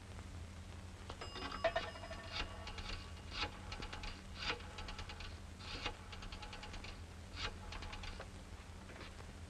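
Coin pay telephone being used: a short bell ring from the coin going in, then the rotary dial is turned and runs back several times, each time with a quick train of clicks. A steady low hum from the old film soundtrack runs underneath.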